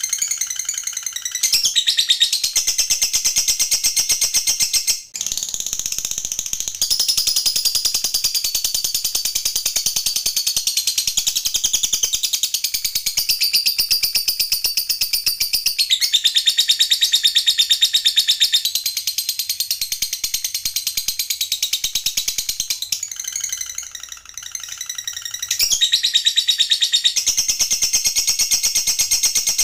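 Lovebird's long 'ngekek' chatter: a very fast, high, rattling trill held unbroken for many seconds at a time, with short breaks about five seconds in and again around twenty-four seconds. This drawn-out 'ngekek panjang' is the prized song of contest lovebirds.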